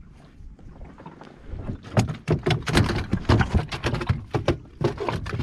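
Quick, irregular knocks and clicks on a small fishing boat, getting busy about two seconds in, with some heavier thuds among them.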